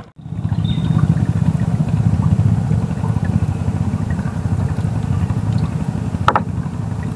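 Small boat engine running steadily at low speed, a fast, even low-pitched drone. A short sharp click comes near the end.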